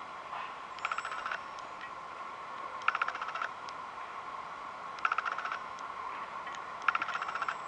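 Four short chirping trills of rapid clicks, one about every two seconds, over a faint steady high hum.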